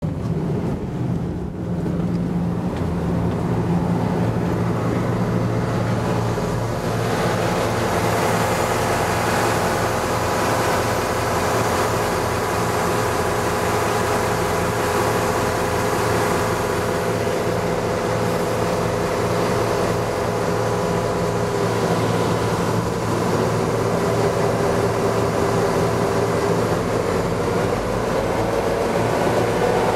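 Roots-blown 16-cylinder EMD 16-567CCL two-stroke diesel of a single-screw tugboat running steadily under way, its pitch climbing near the end as it revs up.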